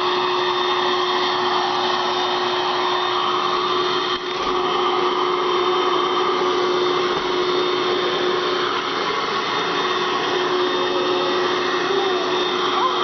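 Red Dirt Devil vacuum cleaner running steadily, an even motor whir with a constant whine, dipping briefly about four seconds in.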